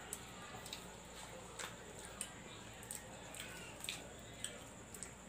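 Mouth sounds of a person eating braised pork knuckle: chewing and smacking, heard as soft, irregular clicks about twice a second.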